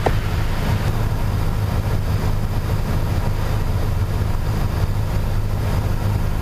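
Piper PA-28 Warrior III's four-cylinder Lycoming engine and propeller droning steadily, heard inside the cabin, at descent power with the carburettor heat on.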